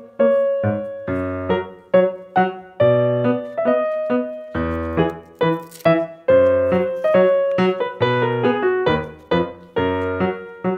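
Background piano music: a simple tune of separate notes, each struck and fading, with bass notes underneath.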